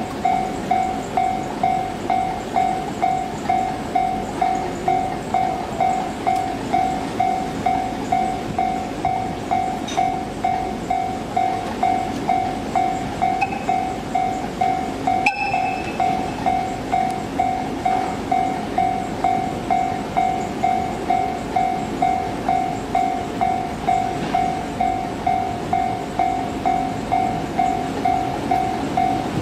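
Railway level-crossing warning bell ringing steadily, about one and a half strikes a second. Under it runs the low rumble of an EF65 electric locomotive and its freight train moving slowly toward the crossing. A single sharp click sounds about halfway through.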